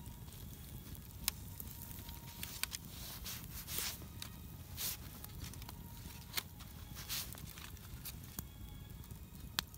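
Wood campfire crackling: scattered sharp pops and snaps over a steady low rumble, with a few short hisses about four, five and seven seconds in.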